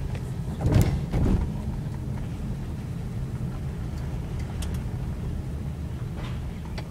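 Car cabin noise while driving slowly: a steady low engine and road hum, with two short knocks about a second in.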